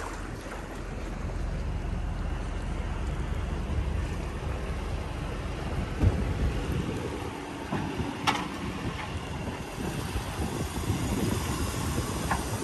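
Wind rushing over the microphone with water washing in the shallows, a steady rumbling hiss. A single thump about six seconds in and a sharp click a couple of seconds later.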